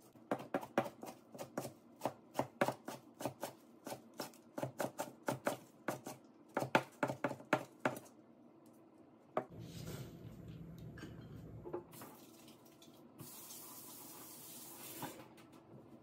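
Chef's knife chopping fresh herbs on a plastic cutting mat over a tiled counter: a quick, uneven run of sharp knife strikes, about four a second, that stops about eight seconds in. After that comes a steady rushing noise with a low hum, louder for a couple of seconds near the end.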